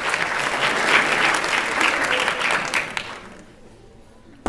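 Audience applauding and cheering, dying away about three seconds in.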